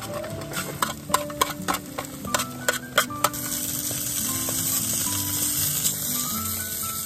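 Metal chopsticks tapping and scraping against an aluminium mess tin while egg is stirred, then bacon strips hissing and sizzling in the hot tin from about halfway through.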